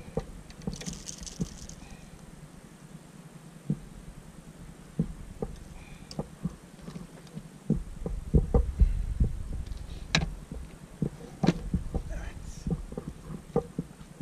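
Scattered clicks and knocks of fishing tackle being handled aboard an inflatable kayak as the line is cut and retied. A low rumble comes in about eight seconds in, and the knocks grow more frequent from then on.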